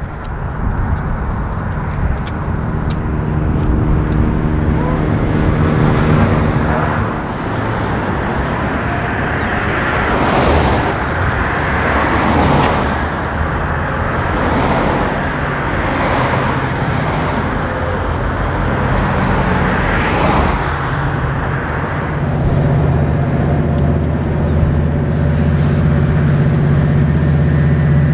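Diesel locomotive engine running with a steady low drone. In the middle, a rushing noise swells and fades about every two seconds, as if a train is passing close by, before the engine drone comes back up near the end.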